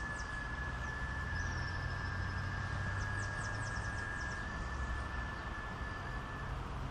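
Outdoor ambience: a steady low rumble and hiss, with a thin steady high tone that stops near the end and a quick run of high chirps about three seconds in.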